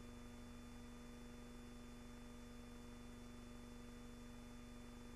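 Near silence: a faint steady hum and hiss, with no sound of the shell strikes seen on the hillside.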